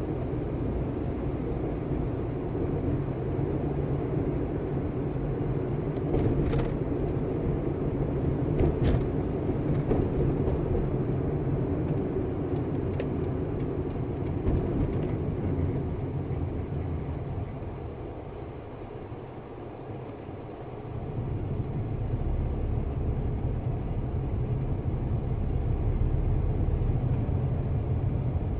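Car driving on city streets: a steady low rumble of road and engine noise that fades for a few seconds about two-thirds of the way through, then builds again. A few faint clicks come in the first half.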